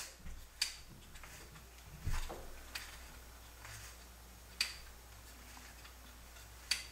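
Stroke-adjustment knob on the base of an Enfasco RH160E rivet nut tool turned by hand, clicking sharply every one to two seconds as the stroke is lengthened, with light handling noise.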